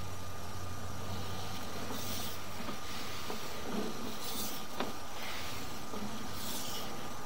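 Steady electrical hum and hiss from a sewer inspection camera rig, with a few brief scraping swishes and faint clicks as the camera's push cable is drawn back through the pipe.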